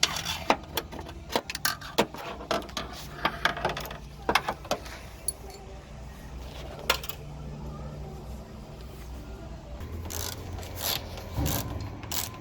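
Sharp metallic clicks and rattles of a Torx bit on a long extension being worked at the screw that holds a car's rear door handle. The clicks are thickest in the first few seconds, with a few more about seven seconds in.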